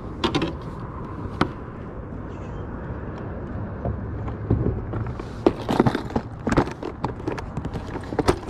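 Handling noise from fishing gear: a couple of sharp clicks in the first second and a half, then a run of plastic clicks and rattles over the last three seconds as a plastic tackle box is brought out and opened, over a low steady rumble.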